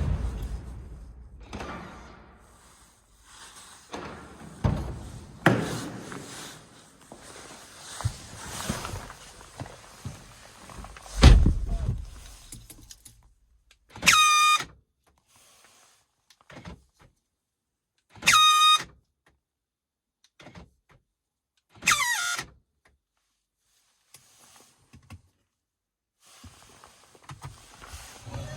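A BMW E93 convertible's doors thud shut, the last one a heavy slam. Three short, horn-like pitched tones follow about four seconds apart, each under a second, and the last falls in pitch. These tones are the weird sound the car makes on locking.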